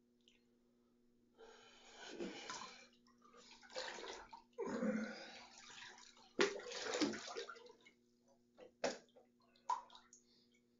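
Bathwater sloshing and splashing as a person shifts in the tub, in several bursts, then a few short splashes near the end.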